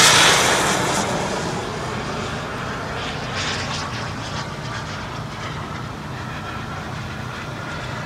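Radio-controlled model jet's turbine engine flying past, loudest at first and fading over the first couple of seconds as it draws away, then holding as a steady, more distant rumble.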